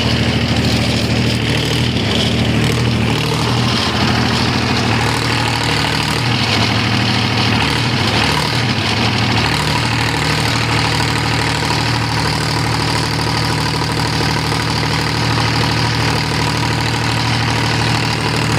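Mahindra diesel generator engine running steadily under test, with a constant low note that wavers for a few seconds partway through before settling again.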